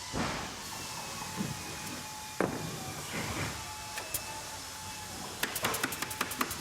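Factory machinery background: a steady hum of running machines with a faint high tone, several heavy clanks in the first few seconds, and a quick run of sharp clicks, several a second, near the end.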